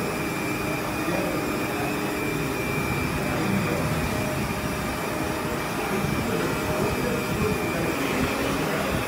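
Steady rushing room noise of a restaurant dining room, the constant din of ventilation and background activity, with a faint high whine over it.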